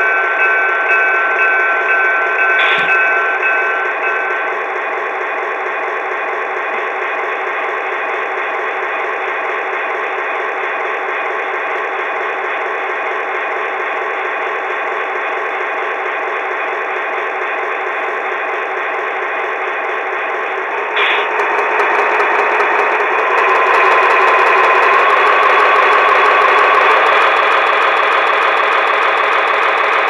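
Diesel locomotive engine sound played by the QSI Quantum sound decoder of an HO-scale Atlas Fairbanks-Morse Train Master, heard through its small onboard speaker. Steady high tones in it stop about four seconds in, with a click near three seconds. About twenty seconds in, the engine sound grows louder and steps up in pitch twice, like a diesel revving up through its notches.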